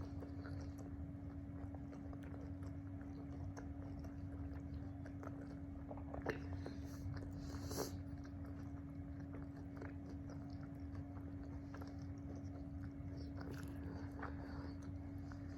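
Close-miked chewing and biting of food, with small wet mouth clicks and a couple of louder short sounds about 6 and 8 seconds in, over a steady background hum.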